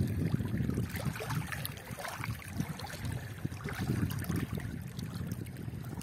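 Small wind-driven waves lapping and splashing against a rocky reservoir shore, in slow uneven swells.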